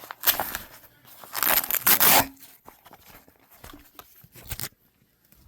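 Nylon carrier pouch being ripped open and handled: a rasping rip lasting about two seconds, then fainter rustling and a few clicks.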